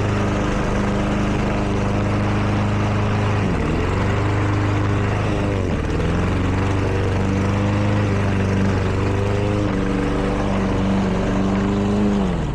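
Lawn mower engine running at full speed while shredding a cake, its pitch dipping twice, about three and a half and six seconds in, as it bogs down briefly under the load and then recovers.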